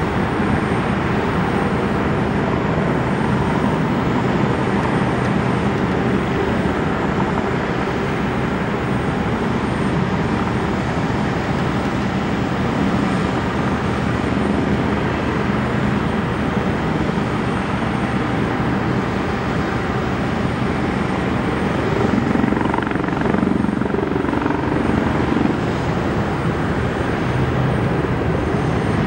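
Steady aircraft engine noise, a continuous rumble that swells slightly about 22 seconds in.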